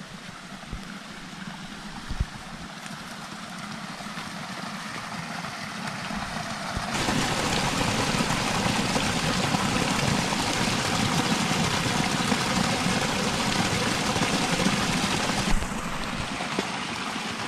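Rainwater runoff rushing and splashing as it pours over a small drop into a muddy pool: a steady rushing noise, quieter at first, that jumps much louder about seven seconds in and eases back near the end.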